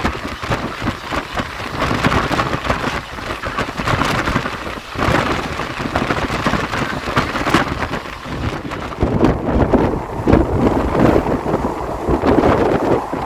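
Running noise of an ICF passenger coach on the move: a loud, steady, dense rattle and rumble of the coach and its wheels on the track.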